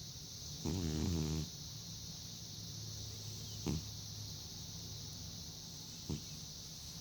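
Elderly cat snoring in deep sleep: one drawn-out, buzzing snore about a second in, then two brief clicks later, over a steady faint hiss.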